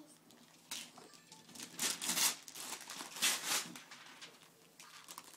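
Gift-wrapping paper being torn and crinkled by a small child's hands, in a few short rips, the loudest about two and three and a half seconds in.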